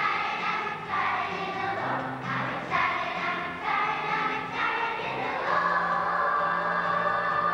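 Children's choir singing in short phrases, then holding one long note from about five and a half seconds in.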